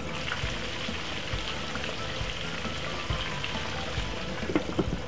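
Chicken pieces frying in a wide pan of oil on low heat: a steady sizzle, with a few small pops near the end.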